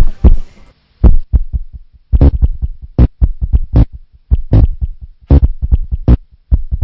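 Deep, punchy thumping beat with no voice over it: a heavy low hit about every 0.8 s, with lighter taps in between.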